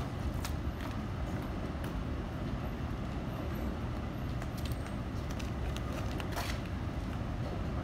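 City street noise: a steady low rumble of traffic, with a few short sharp clicks scattered through it, the strongest about six and a half seconds in.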